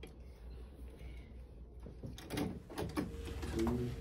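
Light clicks and knocks from a small combination padlock being handled and tried, starting about halfway through, with faint voices near the end.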